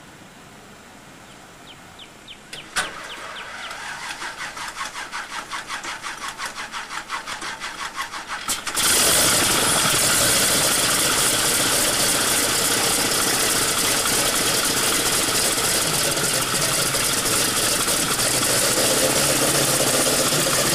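Waco Taperwing biplane's radial engine being started: a click about three seconds in, then the engine turns over with a rhythmic pulsing about three times a second. It catches about nine seconds in and runs loud and steady.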